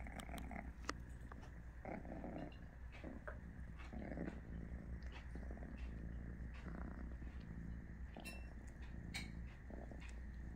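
British Shorthair cat purring close to the microphone, a steady low rumble, with small clicks and rustles as the cats lick and nuzzle each other's fur.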